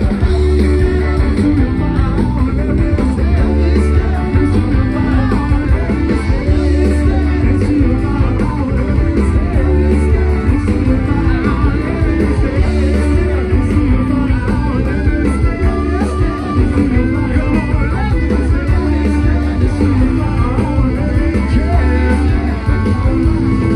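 A live rock band playing loud over the PA, with electric guitars, bass and drum kit and a singer.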